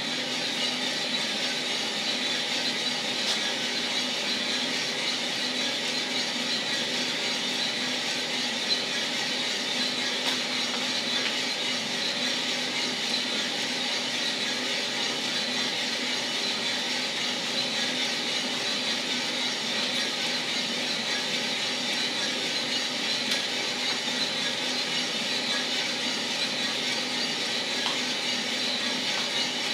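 1 kg Mill City drum coffee roaster running steadily: an even rush of air over a steady motor hum, with a few faint ticks scattered through.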